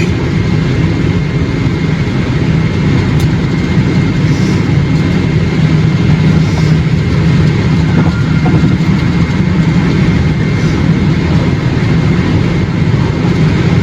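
Steady low drone of a vehicle's engine and tyre noise heard inside the cabin while driving on the highway.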